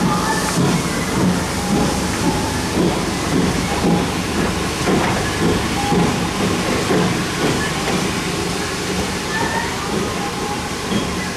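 Steam-hauled passenger coaches rolling past as the train pulls out of the station, their wheels rumbling over the rails, with steam hiss from the GWR 56XX tank engine at the head of the train.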